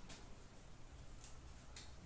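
Near silence: faint room hum, with two soft ticks of trading cards being handled, about a second in and near the end.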